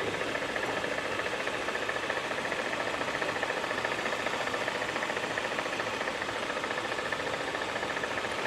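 Jeep engine running with the air conditioning on, giving a steady, fast-pulsing high-pitched buzz from the engine bay. This abnormal noise comes only with the AC switched on, and the mechanic takes it for the air-conditioning compressor.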